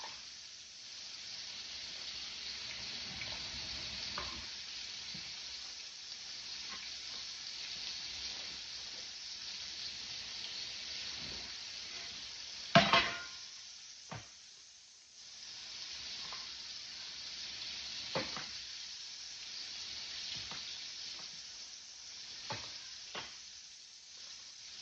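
Breaded chicken tenderloins frying in hot grease in a pan, a steady sizzle. A few sharp knocks sound over it, the loudest a little before halfway.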